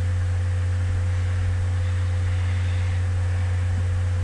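A steady low hum with an even hiss over it, constant throughout, with no other event.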